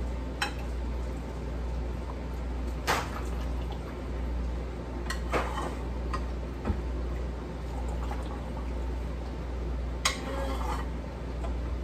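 Metal ladle clinking and scraping in a pot and on a canning funnel as pickle brine is ladled and poured into jars, about six sharp clinks in all, with a steady low hum underneath.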